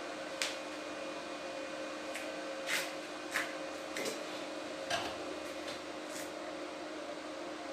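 A small electric motor running steadily with a low hum, with about six light knocks and clicks over it.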